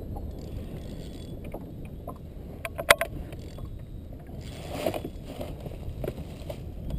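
Gear being handled in an anchored canoe: small knocks on the hull over a steady low rumble of water and wind on the microphone, with a sharp click about three seconds in and a short rustle about five seconds in.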